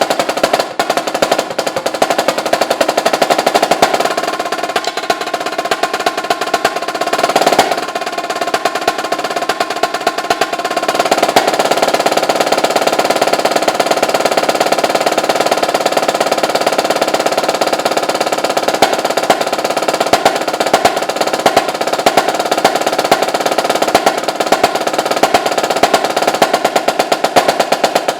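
Solo snare drum played fast: dense strings of stick strokes and rolls over the drum's ring, with a long, steady roll-like passage from about eleven seconds in.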